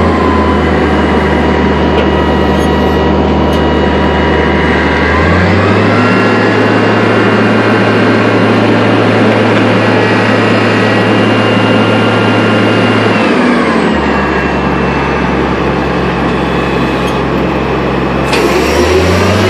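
Boom truck engine running steadily with a higher whine riding on it. Its speed steps up about five seconds in, drops back about fourteen seconds in, and rises again near the end as the boom and cage are worked.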